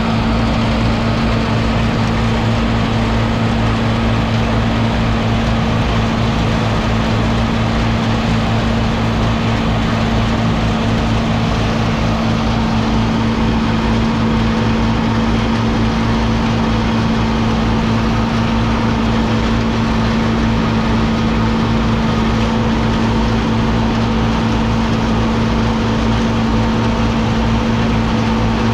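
Tractor-driven silage blower running steadily, blowing chopped corn silage up the pipe into an upright silo: a loud constant drone over a steady rushing hiss.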